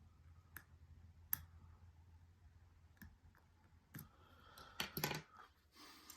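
Lock pick and tension wrench working the pins of an Abus 83/45 padlock: scattered sharp metallic clicks, with a quick cluster of louder clicks about five seconds in and light scraping near the end.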